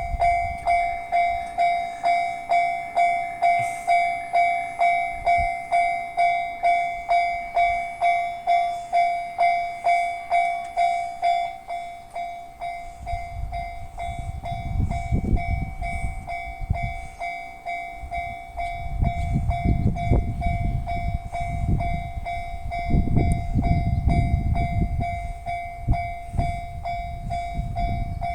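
Japanese railway level crossing warning bell ringing steadily, about one and a half strokes a second. Partway through, a train passes over the crossing, its wheels rumbling and clacking over the rail joints under the bell.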